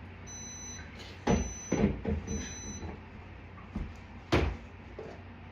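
Several knocks and clunks of kitchen items being handled and set down, the sharpest near the middle and end. A faint high electronic beep repeats about once a second through the first half.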